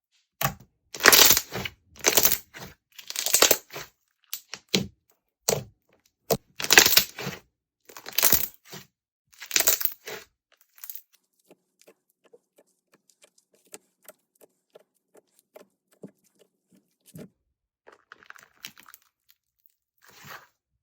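Slime being squeezed and pressed by hand, crackling and popping in a run of loud bursts over the first ten seconds, then only faint clicks and small pops.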